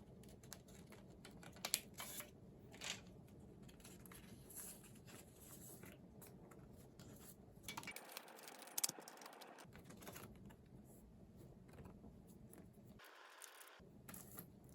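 CD packaging being handled and opened: faint clicks and taps, with a short stretch of rustling about eight seconds in and another near the end.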